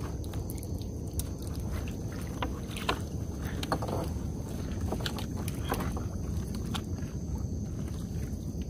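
Wet trammel net being hauled by hand over the gunwale of a small wooden boat: scattered rustles, drips and small taps of net and gloves against the hull, over a steady low rumble.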